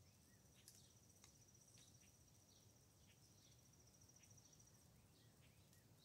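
Near silence outdoors: a faint, high insect trill runs for about four seconds, starting just under a second in, with faint scattered bird chirps.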